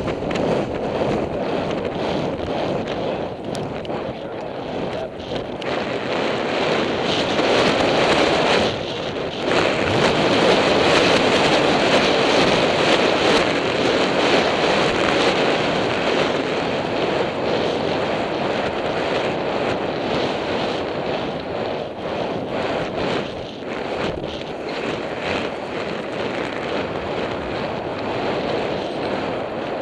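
Wind rushing over a helmet-mounted camera's microphone as a horse gallops, a loud steady rushing noise that drops briefly about nine seconds in.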